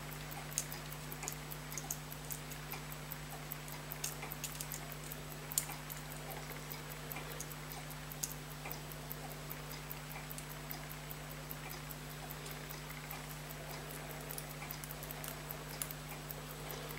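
Faint, irregular small clicks and scrapes of tweezers and a fine steel pointed tool working on a brass pocket-watch mainspring barrel, over a steady low hum.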